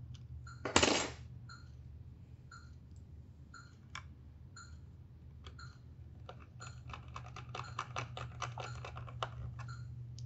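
Hands working small plastic wire connectors and wiring inside a syringe pump's open plastic housing. A brief loud scrape comes about a second in, then a quick run of small plastic clicks and rattles in the last few seconds. Faint regular ticks sound about once a second over a steady low hum.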